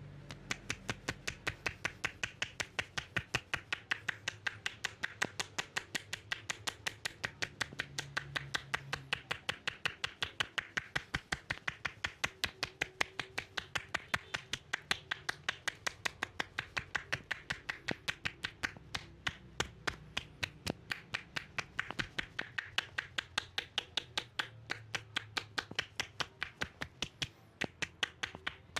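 Massage tapping: sharp, evenly paced percussive strikes on the body, several a second, kept up without a break.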